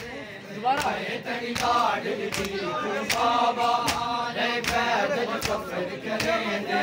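Men chanting a Muharram mourning lament (nauha) together while beating their chests in unison (matam). The slaps land as sharp claps about every three-quarters of a second under the chant.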